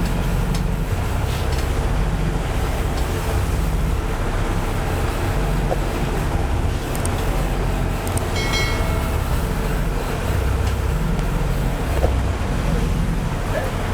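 Fishing boat's engine running steadily while trolling: a low, even drone with wind and water noise over it. A brief high-pitched squeak about eight and a half seconds in.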